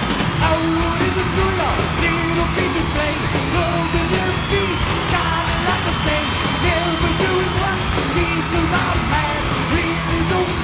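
Heavy metal band playing live: distorted electric guitar, bass and drums, with a wavering melody line over them.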